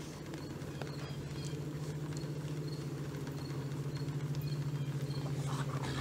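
A steady low hum throughout, with soft scuffling and rustling from two dogs wrestling and mouthing each other on a fabric blanket, picking up near the end.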